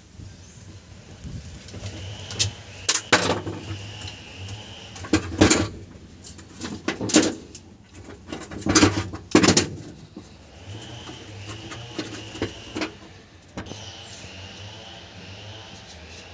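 Irregular clinks and knocks of hand tools and metal carburetor parts being handled, loudest in a cluster near the middle.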